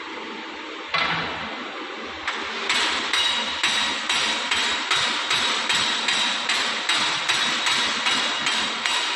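A hammer striking the metal parts of a furnace chain grate: light blows to seat the parts. There is one blow about a second in, then a steady run of about two blows a second, each with a metallic ring.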